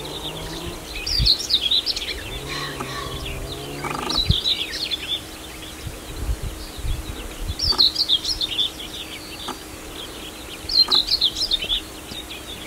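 Small birds singing in short, quick twittering phrases, four bursts of song a few seconds apart. A low steady hum sounds for a couple of seconds about two seconds in.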